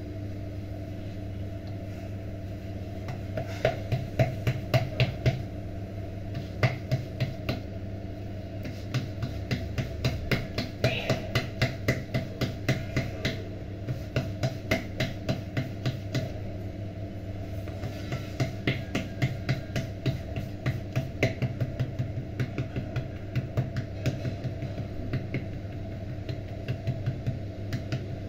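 Hands patting a ball of jowar-and-rice flour dough flat on a floured stone counter to shape a bhakri: runs of short slapping pats, a few a second, with pauses between runs. A steady low hum runs underneath.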